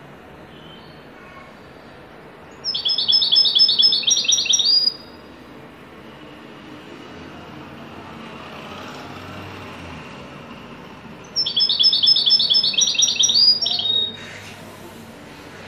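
European goldfinch singing the trilled 'haddadi' style: two phrases of rapid repeated notes, each about two seconds long, one a few seconds in and one near the end, over a steady background hiss.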